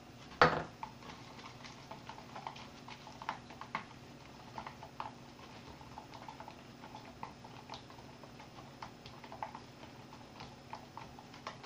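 A sharp knock about half a second in, then a utensil stirring and tapping irregularly against a small bowl as seasonings are whisked into melted butter.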